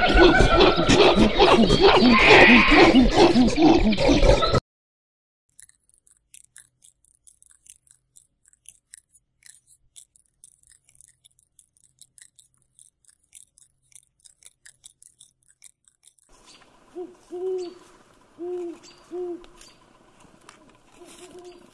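A loud, dense jumble of sound cuts off abruptly about four and a half seconds in. Near silence with faint scattered ticks follows. From about sixteen seconds, a Eurasian eagle-owl gives four short, low hoots over a faint steady hum.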